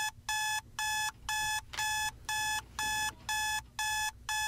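Wake-up alarm going off: a steady run of electronic beeps, about two a second.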